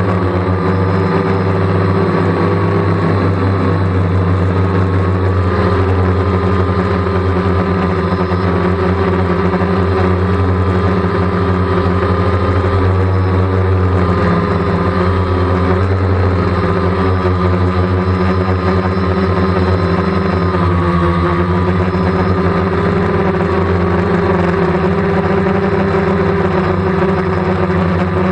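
DJI Phantom quadcopter's electric motors and propellers humming steadily, heard up close from the aircraft itself, the pitch wavering slightly now and then as the motors adjust speed in flight.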